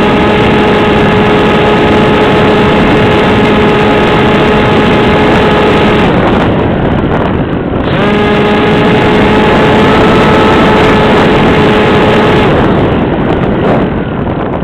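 Electric motor and propeller of an AXN Floater-Jet RC plane in flight: a steady high whine over the rush of wind. The whine drops out about six seconds in and comes back two seconds later, then stops again near the end, leaving only the wind rushing.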